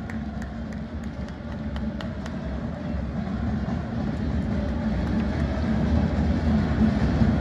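Stadium crowd noise: a low murmur of many voices across the stands, with a few scattered claps in the first two seconds, swelling steadily louder toward the end.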